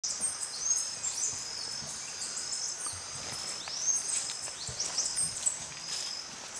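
Tropical forest ambience, full of short, high-pitched bird chirps and whistles that sweep in pitch and overlap one another, over a faint steady background hiss.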